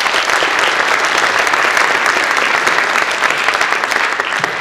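Audience applauding steadily: many hands clapping at once in a hall, tapering off near the end.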